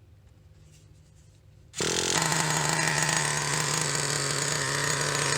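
Small two-stroke glow engine of a Traxxas Revo 3.3 nitro RC truck running at a steady, high-pitched buzz. It comes in suddenly and loud about two seconds in, after a faint start.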